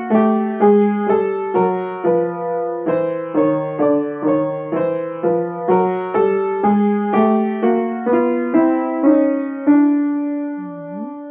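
Weinbach upright piano playing a chromatic scale with both hands in contrary motion: notes about two a second, the two hands spreading apart and coming back together. It ends on a held note that dies away near the end.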